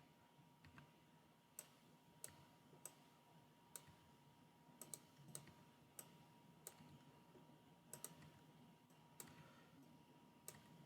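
Near silence with faint, irregular clicks of a computer mouse and keyboard, about a dozen over the stretch, used while editing vector nodes. A faint steady high hum runs underneath.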